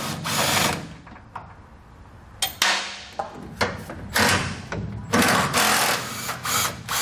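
Cordless impact driver with a 16 mm socket hammering in a series of short bursts, loosening and backing out the bolts of a truck's factory jounce bumper.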